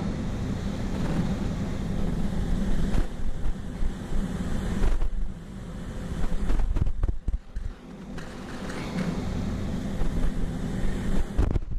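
Wind buffeting the microphone over the wash of the sea against a ship's hull, with a steady low machinery hum from the ship underneath. A few brief knocks come about seven seconds in and again near the end.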